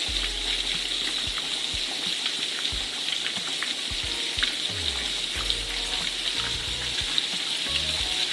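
Breaded chicken frying in hot oil: a steady sizzle dotted with small crackles and pops.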